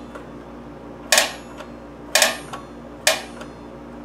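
Ratchet clicker snapping over the teeth of a 100-tooth saw blade used as an indexing wheel on a lathe spindle, as the spindle is turned by hand one tooth at a time: three sharp metallic clicks about a second apart, the steel blade ringing briefly after each.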